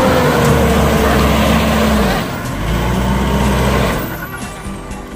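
Mitsubishi Pajero Sport's engine revving hard under load as the SUV climbs out of a muddy rut, its pitch sagging slightly. The engine eases off about two seconds in, pulls again, and drops back about four seconds in.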